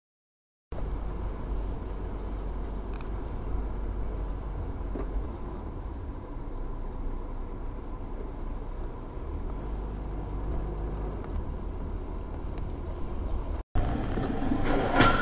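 Steady engine and road noise of a moving car, heard from a dashcam inside the cabin, mostly a low rumble. Near the end the sound cuts abruptly to a different recording with a brief, sharp, louder noise.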